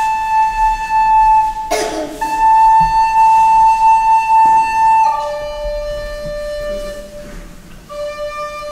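Recorder playing a slow melody of long held notes, with a short noise about two seconds in. The tune steps down to a lower note about five seconds in, quietens after about six and a half seconds, and returns to the lower note near the end.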